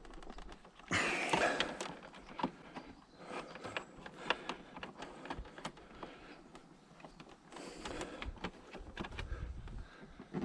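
Small clicks, scrapes and rustles of fingers straining at a tight plastic indicator bulb holder on a Honda VFR800, which is held fast by its rubber seal. There is a louder rustle about a second in.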